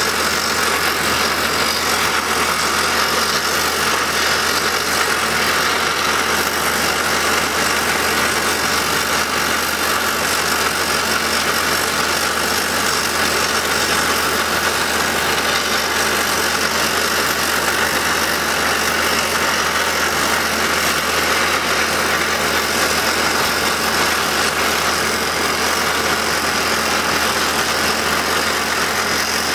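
Kaishan KL511 top-hammer rig drilling a blast hole in rock. Its Montabert HC170 hydraulic rock drill hammers continuously over the running engine of the rig, making a loud, steady, dense noise that holds even throughout.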